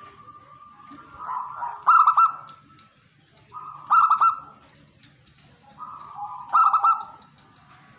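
Zebra dove (perkutut) cooing: three song phrases about two and a half seconds apart, each a lower lead-in coo running into a quick series of loud rolling notes.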